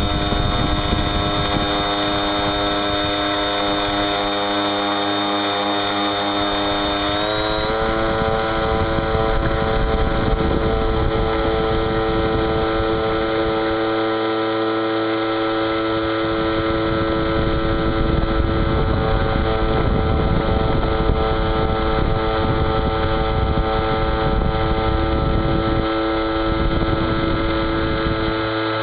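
RC model boat's motor whining steadily, heard from on board over a constant hiss. About seven seconds in, the pitch steps up and then holds at the higher note.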